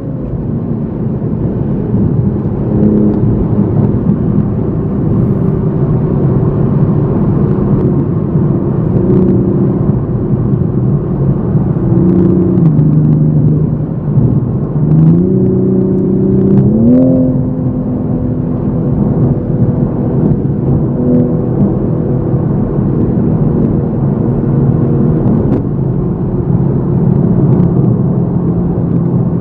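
Toyota GR Supra MK5's 3.0-litre turbocharged inline-six heard from inside the cabin while driving in Sport mode. The engine note steps up and down with throttle and gear changes, climbs in one rev about halfway through, then holds steady.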